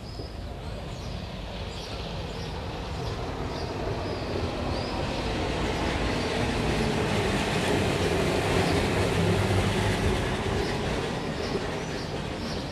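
A vehicle passing close by: a steady noise that swells to its loudest about eight to ten seconds in, then eases off.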